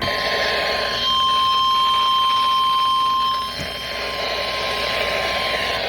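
NOAA Weather Radio warning alarm tone: a single steady, unbroken beep over radio hiss. It is loudest from about one to three seconds in, then a little fainter. It is the attention signal that comes before a broadcast warning.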